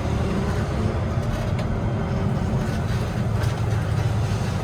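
Tractor engine running steadily under way: a continuous low drone with a few faint rattles.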